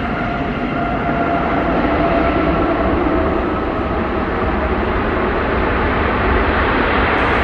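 Airbus A320-family airliner's jet engines roaring steadily during the landing rollout just after touchdown, with a whine that fades out about halfway through.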